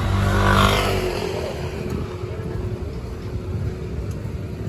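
A motor vehicle engine passing close by, loudest about half a second in and then fading away over steady street traffic noise.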